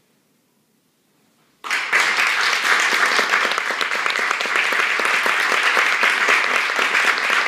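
Near silence, then an audience starts applauding about a second and a half in, a dense, steady clapping that carries on.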